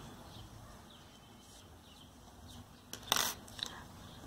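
Faint handling noise of yarn and crochet work, then one brief clatter about three seconds in and a smaller click after it: the metal crochet hook set down on the table.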